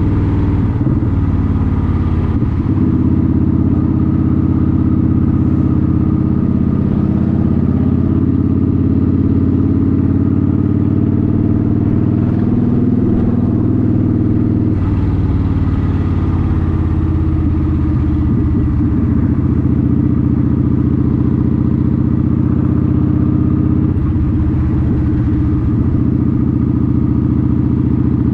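Motorcycle engine running steadily during a ride, its pitch shifting a little up and down with the throttle.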